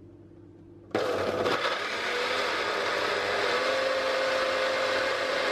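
Personal bullet-style blender switching on about a second in and blending a smoothie of milk and frozen fruit. It is rough and choppy for the first moment as the frozen pieces hit the blades, then runs with a steady motor whine.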